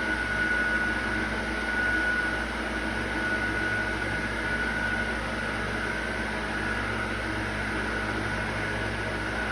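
Steady machine hum with a high, slightly wavering whine running through it.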